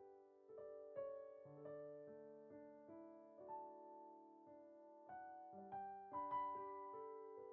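Background music: a solo piano playing slow, quiet chords, each note struck and left to ring.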